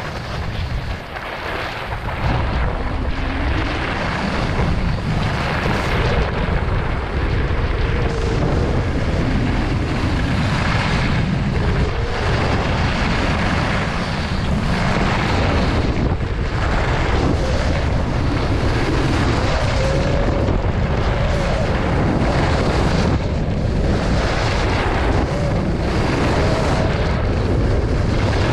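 Wind buffeting the microphone of a moving skier's camera, a heavy low rumble, mixed with the hiss and scrape of skis carving on groomed snow that swells and fades with each turn every second or two.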